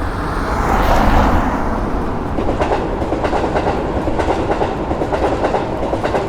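Train passing, a loud rush loudest about a second in, then a quick run of wheels clacking over the rail joints.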